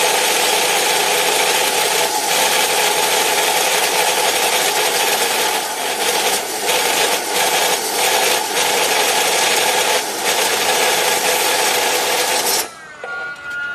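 Low-speed cutting saw with an alloy (carbide-tipped) blade cutting through stock: a loud, steady, harsh rasping. Near the end the cut stops abruptly and a falling whine follows as the blade spins down.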